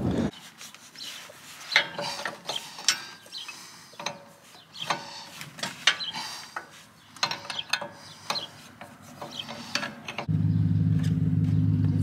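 Metal tool clinks, knocks and scrapes as a wrench works the hydraulic hose fittings on a tractor's rear valve block, loosening a leaking, cracked front-loader hose. About ten seconds in, this gives way abruptly to an engine idling steadily.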